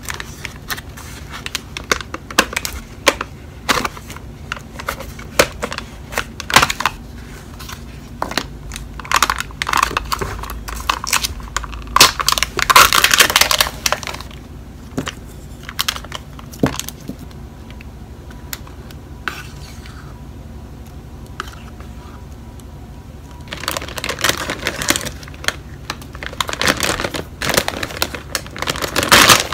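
Crinkling and clicking of food packaging handled by hand. A plastic yogurt tub's lid is pried off and its foil seal peeled away, with the loudest, densest crinkling about ten to fourteen seconds in. After a quieter stretch with a few soft taps, a plastic granola bag crinkles near the end.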